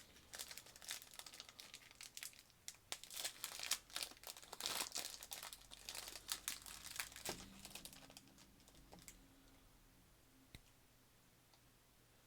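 Kit Kat wrapper crinkling and tearing as it is opened: a quick run of crackles that dies away about nine seconds in.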